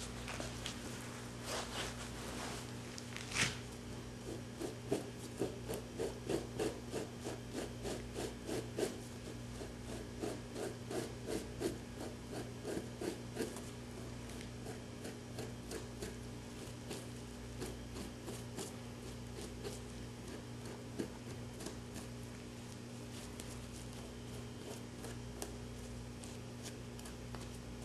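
A knife and gloved hands scraping and rubbing the skin of a mule deer cape, in short strokes about two a second from about four seconds in to about fourteen, then lighter scratchy clicks.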